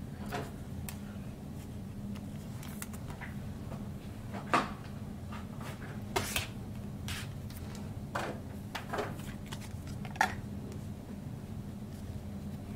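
Trading cards being handled and sorted: scattered light taps and brief rustles, the clearest about four and a half, six and ten seconds in, over a steady low hum.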